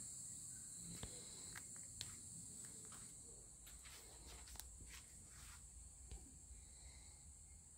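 Near silence: a faint, steady high-pitched hiss with a scattered handful of faint clicks.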